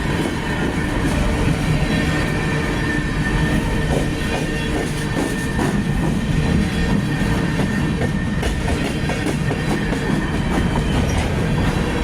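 Union Pacific coal train rolling past: a steady rumble of steel wheels on rail, with repeated clicks and a thin, steady wheel squeal.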